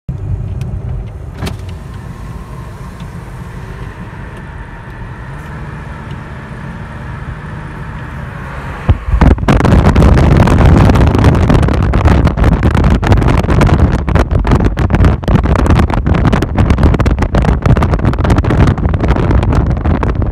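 A car's road rumble heard from inside the cabin. About nine seconds in it gives way suddenly to loud, gusty wind buffeting the microphone as the phone is held at the car's side window while driving.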